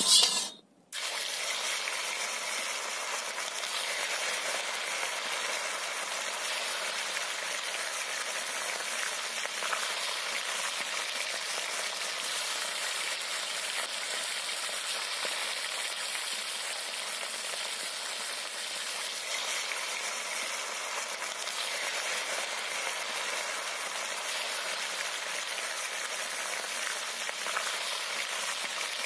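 Small fish frying in hot mustard oil in a kadai: a steady sizzle that runs on evenly after a brief break near the start.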